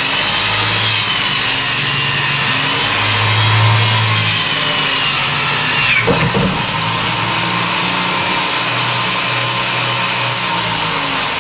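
Improvised table saw cutting a sheet of 3/4-inch marine plywood as it is pushed through, the blade running steadily with a wavering high whine. About six seconds in the whine dips and there is a short knock, then the saw runs on.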